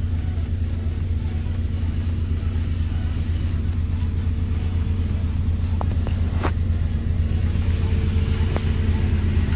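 Off-road 4x4 engine running steadily at low revs with a deep, even rumble. A few brief sharp clicks sound about six seconds in and again shortly before the end.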